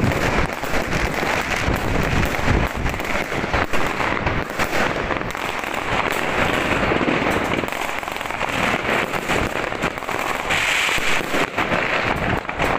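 Many fireworks and firecrackers going off at once: a dense, continuous barrage of overlapping bangs and crackling with no pause.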